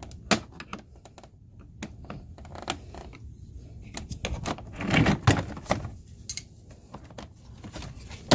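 Irregular plastic clicks and taps from handling the removed interior door handle assembly of a Nissan Altima, busiest about five seconds in.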